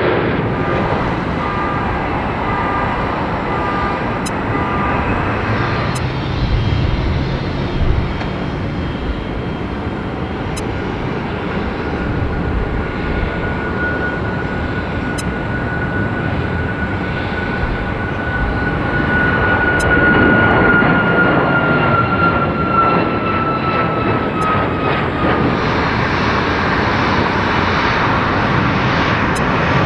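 Jet airliner engines, mostly a Boeing 737 MAX 8's turbofans, with a steady high whine that slowly drops in pitch through the middle and the engine noise growing louder near the end.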